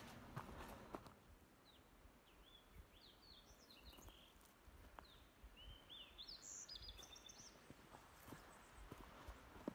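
Faint songbird song: two short phrases of quick rising chirps ending in a buzzy trill, about three seconds in and again around six seconds, with a few soft knocks near the start.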